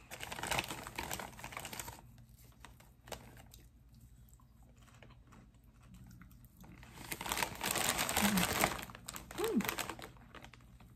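Snack bag of popcorn crinkling and rustling in bursts, for the first couple of seconds and again from about seven seconds in, with a quieter stretch between.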